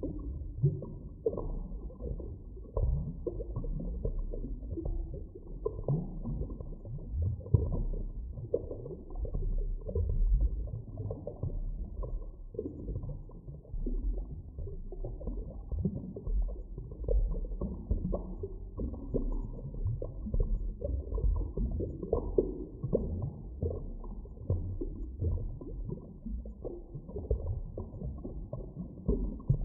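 Muffled underwater ambience: a continuous deep rumble with short low gurgles and swells shifting through it, nothing high-pitched.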